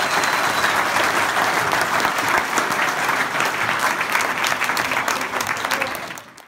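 Audience applauding, a dense patter of many hand claps that fades out near the end.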